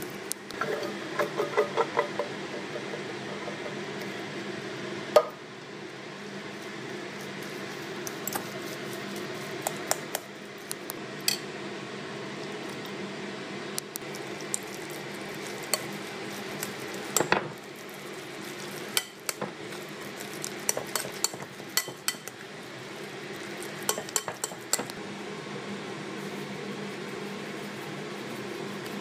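Metal fork clinking and scraping against a glass mixing bowl while mashing boiled potatoes and beans, in irregular bursts of clicks with a sharp knock about five seconds in, over a steady low hum.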